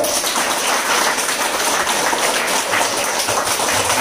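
Large group of students clapping together on a signal, a dense, steady round of applause with no let-up, each trying to clap as loudly as they can.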